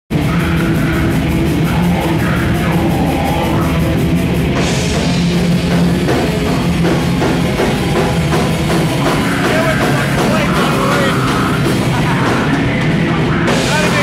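Metal band playing live: distorted guitars and a drum kit at a steady, fast beat, loud throughout; the sound turns brighter about four and a half seconds in.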